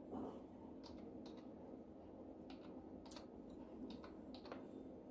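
Faint computer-keyboard typing: irregularly spaced keystrokes as a word is typed out letter by letter.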